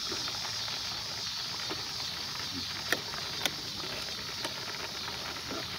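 Fish deep-frying in a pot of hot oil: a steady sizzle, with two sharp clicks about three seconds in.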